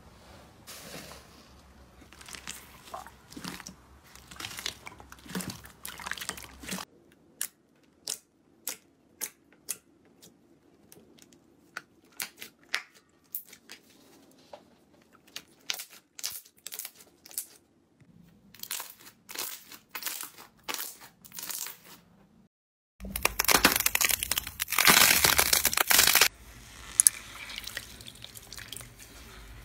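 Slime being pressed, poked and squeezed by hand in several short clips one after another: sticky clicks and pops, for a while about two a second, with a louder, denser stretch of squelching noise about three quarters through.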